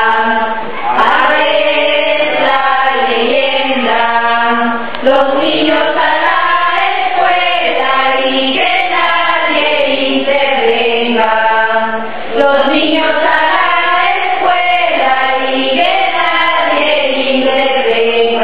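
A group of voices singing together, choir-like, in long phrases with a few short breaks.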